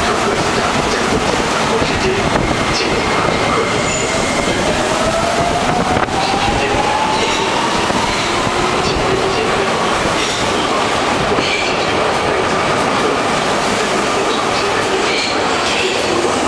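Beijing Subway SFM04 metro train pulling out of an underground station: a steady rumble of wheels on rail, with a motor whine that rises in pitch as the train gathers speed over the first several seconds and then holds, and scattered wheel clicks.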